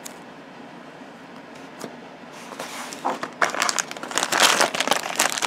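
A few faint clicks of handling, then from about three seconds in a toy's packaging wrapper crinkling and rustling in the hands, growing louder.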